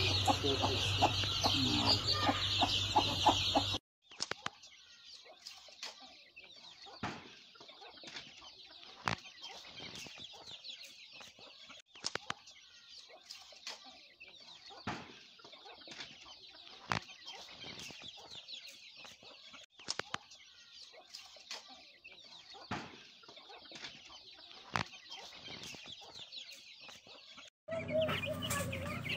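Hen and chicks clucking and cheeping. About four seconds in, the sound drops suddenly to faint high chirping from a flock of chickens and chicks, with occasional sharp ticks. Near the end it jumps back to loud, busy cheeping of a crowd of young chicks.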